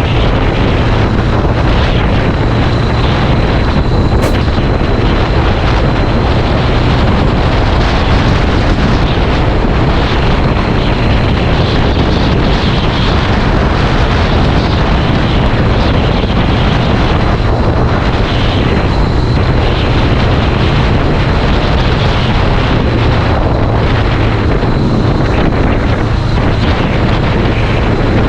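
Loud, steady wind noise on the microphone of a Honda CBR500R motorcycle being ridden, with the bike's parallel-twin engine running low underneath.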